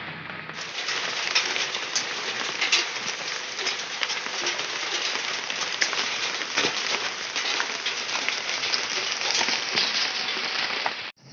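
Heavy rain pouring down, a dense hiss with many sharp drop impacts on a hard surface.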